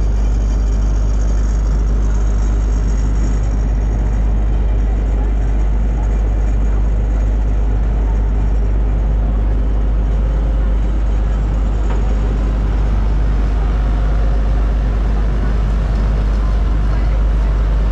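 River passenger boat's engine running with a loud, steady low drone, mixed with the rush of water and air around the boat.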